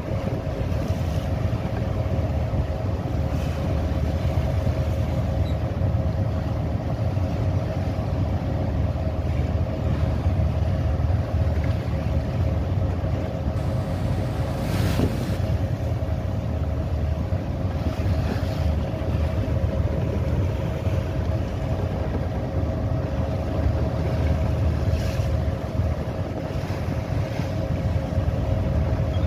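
A boat's engine running steadily at sea, with the rush of wind and waves over it and several brief surges of rushing water noise, the strongest about fifteen seconds in.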